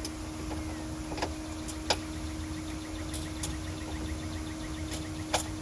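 Faint, quick, even clicking of a ratchet wrench, about seven clicks a second for roughly three seconds, as the 12 mm support-strut mounting hardware is screwed in. A few sharp knocks of the tool on metal are heard over a steady low hum.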